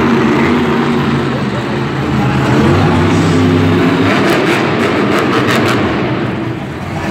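Grave Digger monster truck's supercharged V8 running hard at high revs as the truck spins on the dirt, a steady heavy engine drone, with a quick run of sharp clicks about four seconds in.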